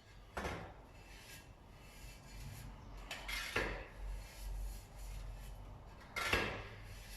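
Tyre paste being brushed onto a tyre bead: three main scrubbing strokes a few seconds apart, with light knocks and clinks.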